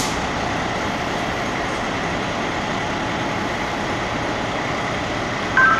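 Fire engines' diesel engines idling steadily, with a short electronic beep near the end.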